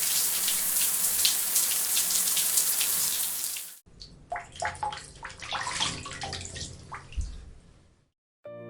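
Water running hard from a tap or shower for nearly four seconds, then, after a sudden cut, a quieter spell of irregular splashing and dripping that fades out.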